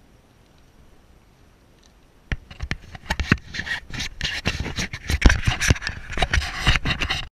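Irregular knocks and scraping, starting suddenly about two seconds in and going on loudly until the sound cuts off.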